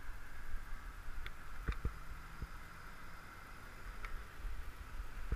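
Bicycle rolling along a paved path: low rumble and knocks as it jolts over the surface, under a steady hiss, with a few sharp ticks.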